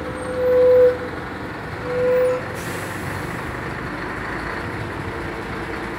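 A heavy vehicle's engine running with a steady tone over a rumble. The tone swells loudly twice in the first two and a half seconds, then settles back to a steady drone.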